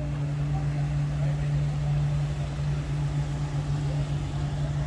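Parked GMC van's engine idling: a steady low hum.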